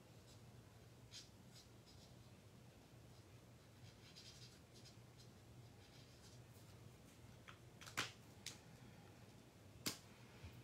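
Faint strokes of a marker tip colouring on cardstock, with two sharp clicks about two seconds apart near the end.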